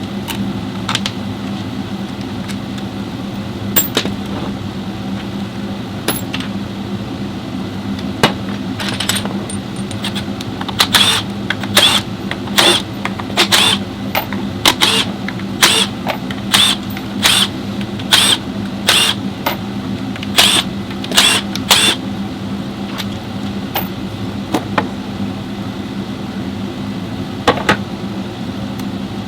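Workshop work on a car: a steady machine hum, with a run of short, sharp mechanical bursts about two a second for some ten seconds in the middle, and a few single clicks and knocks.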